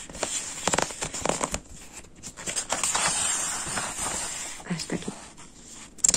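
Paper pages of a stapled exam booklet being handled and turned, with crinkling rustles and a few small clicks and taps.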